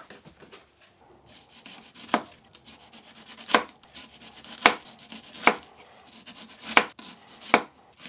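Kitchen knife slicing a red onion into thin rings, each cut ending in a sharp tap of the blade on the paper-covered wooden table, roughly once a second with softer cuts in between.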